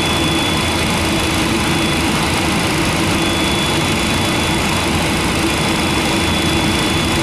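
Steady jet-engine noise in an MD-10 cockpit: the CF6 engines are running and the centre engine is being turned by its air starter at about 20% N2, waiting for fuel. It holds as a steady hum with a thin high whine over it.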